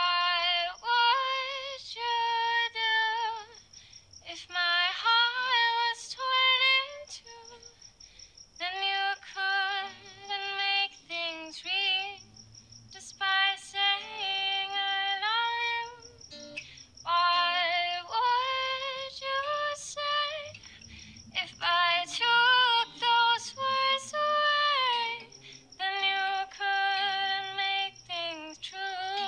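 A young woman singing a slow melody solo, holding long notes in phrases of a few seconds with short breaths between them.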